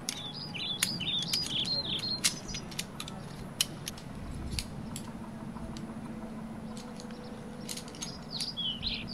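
A small bird singing quick warbled chirps, in a run over the first two seconds and again near the end. Sharp clicks and knocks are scattered throughout, and a low steady hum comes in about halfway.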